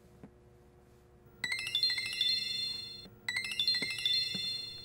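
Mobile phone ringtone for an incoming call: a bright chiming melody that starts about a second and a half in and repeats its phrase once.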